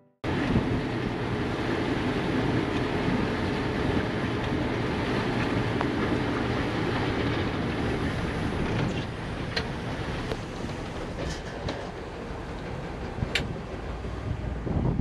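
Steady loud vehicle rumble with a rushing noise, easing slightly about halfway through, with a few sharp clicks and one short high squeak near the end.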